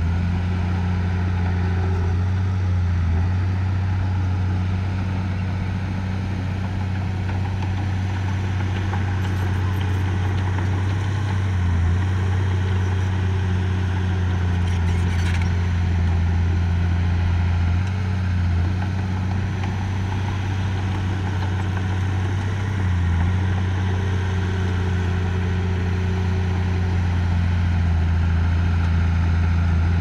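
Heavy earthmoving machine's diesel engine running steadily with a low drone, dipping briefly a few times.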